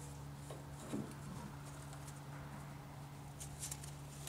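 A few faint light knocks and clicks as a steering shaft's collar is slid onto the splined steering-gear input shaft, the clearest about a second in, over a steady low hum.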